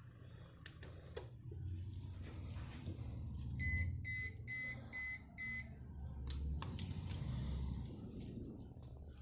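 Five short electronic beeps, about two and a half a second, over a steady low rumble with a few clicks.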